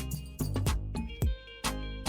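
Background music with a steady beat: sharp drum hits over deep bass kicks that drop in pitch.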